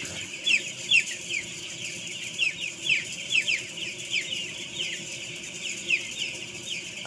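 A large flock of young broiler chicks, 11 days old, peeping continually. Many short, high, falling peeps overlap, several a second.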